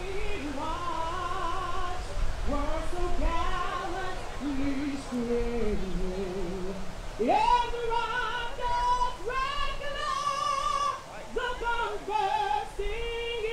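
A woman singing solo, long held notes with vibrato rising and falling in pitch, over a steady low rumble.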